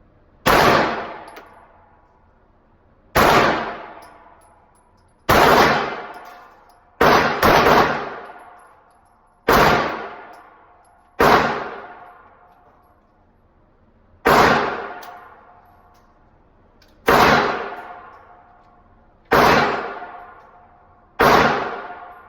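Gunshots fired one at a time, about eleven reports spaced two to three seconds apart, with two in quick succession about seven seconds in; each shot rings out and decays over a second or more.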